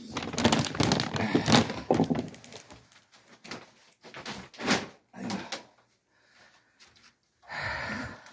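Sliding door rattling along its track for the first couple of seconds, followed by scattered short knocks and rustles.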